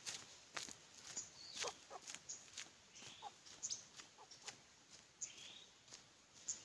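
A chicken clucking softly in a few short notes, with scattered crunching footsteps on a dirt road and a few short high chirps.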